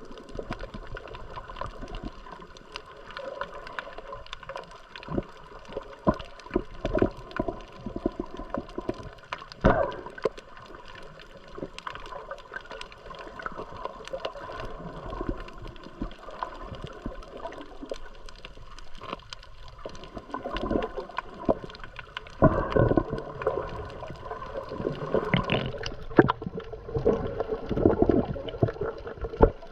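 Water sloshing and gurgling close around the camera, with irregular splashes and knocks that come thicker and louder in the last third.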